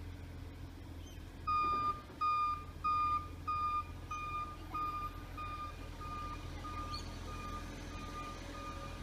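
Garbage truck's reversing alarm beeping, starting about a second and a half in and repeating a little under twice a second, loudest for the first few beeps and then fading. A low steady rumble runs underneath.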